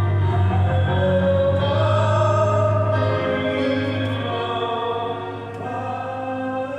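Electronic keyboard playing slow, sustained chords over a held bass note.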